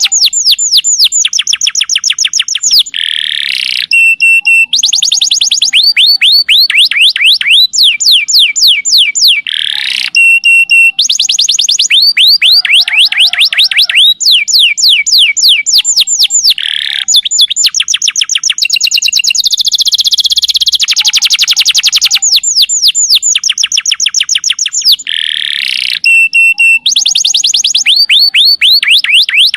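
Domestic canary singing loudly in long, unbroken song: fast rolling trills of repeated falling high notes, one roll running straight into the next, with a new roll type every second or two.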